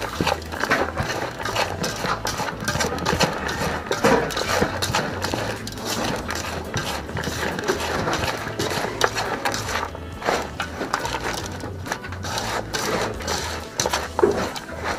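Hand tossing and squeezing raw shredded cabbage, carrot and sweet pepper in a metal bowl: a dense, crisp rustling and crunching with small irregular clicks and knocks against the bowl.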